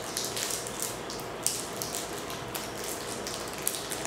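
Shiny plastic toy wrapper crinkling and crackling in small hands as it is worked open, in a steady run of irregular sharp crackles.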